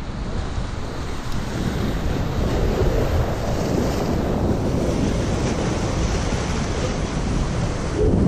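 Ocean surf washing against jetty rocks, with wind buffeting the microphone.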